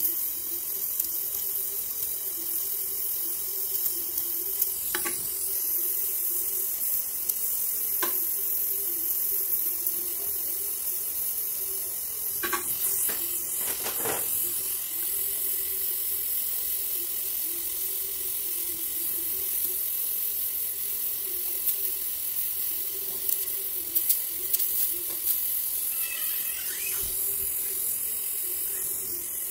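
Oxy-fuel gas welding torch flame hissing steadily as aluminum is welded with filler rod, with a few short clicks along the way.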